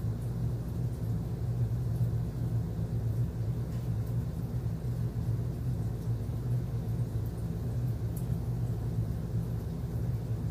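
Steady low hum and rumble, even throughout, with a few faint light ticks over it.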